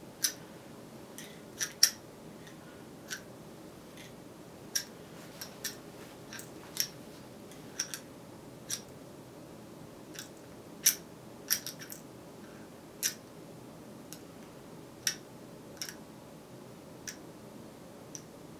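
Sharp, light clicks at uneven intervals, roughly one or two a second, some coming in quick pairs or triplets, over a steady low room hiss.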